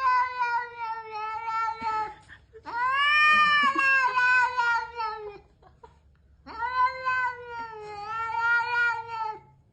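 Domestic cat yowling: three long, drawn-out calls, the first already under way, each a few seconds long with its pitch slowly falling.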